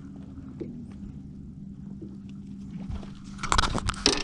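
Fishing boat's motor running with a steady low hum. About three and a half seconds in comes a short burst of loud clattering and rustling, the loudest thing heard.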